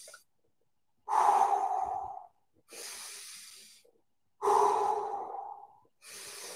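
A man taking slow, deep breaths: quiet drawn-in breaths alternating with louder, longer out-breaths, two full exhales about three seconds apart.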